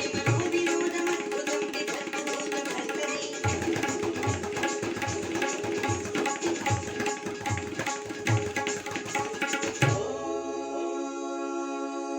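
Tabla played in a fast stream of strokes over backing music, with deep bass strokes on the bayan falling roughly every half second in the middle stretch. The drumming stops about ten seconds in, leaving the backing music's held notes.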